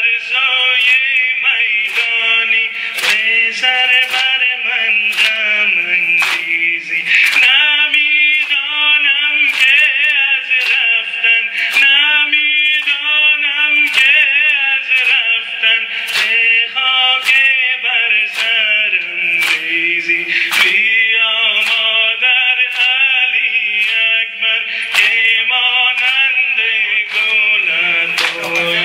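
Male voice singing a noha, a Shia mourning lament, with sharp slaps of sina zani, mourners beating their chests in time, about three every two seconds.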